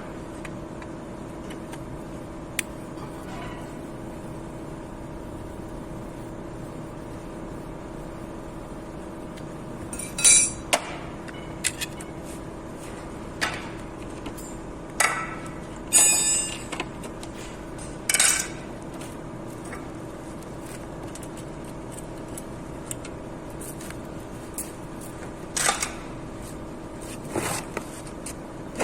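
Metal hand tools and engine parts clinking and clattering now and then as they are handled and set down, over a steady hum.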